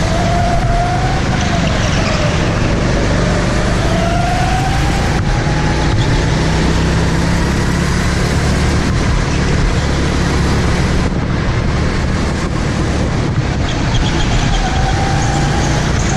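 Go-kart motor running hard under a steady rushing noise, its pitch rising and falling as the kart speeds up and slows for the corners.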